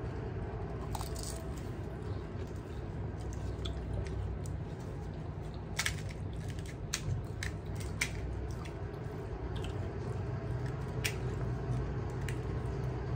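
Crisp gol gappa (pani puri) shells being cracked open with fingers and bitten and chewed: a scatter of sharp crackles, most of them between about six and eight seconds in, over a steady low hum.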